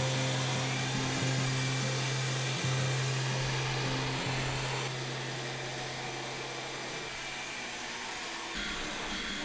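Vacuum cleaner running steadily with its hose held up to the ceiling, sucking up scraped popcorn ceiling texture; the hum weakens in the last few seconds.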